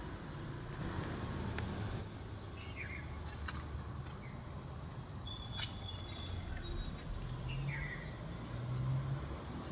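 Outdoor background: a loud noise builds over the first two seconds and cuts off suddenly, followed by a steady low rumble of traffic with a few short bird chirps.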